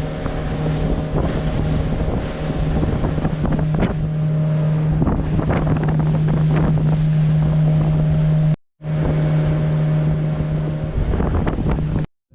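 Motorboat engine running steadily underway, a constant low hum with the rush of wind buffeting the microphone; the sound cuts out abruptly twice.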